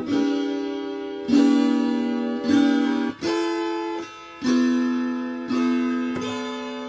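Background music: an acoustic guitar strummed slowly, one chord about every second, each ringing out and fading before the next.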